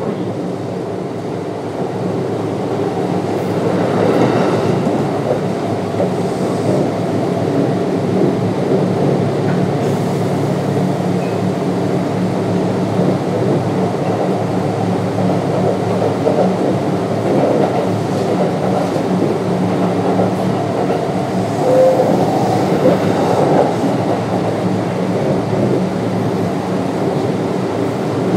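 Kintetsu 3200 series electric train with a Mitsubishi GTO-VVVF drive running between stations: several steady humming tones from the traction drive over wheel-and-rail running noise. It grows a little louder about two seconds in.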